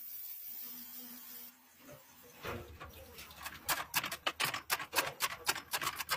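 A spinning wheel rubbing a steel blade gives a steady hiss that stops about a second and a half in. After a short lull, a mechanical press starts a quick run of sharp metallic clacks, about three or four a second.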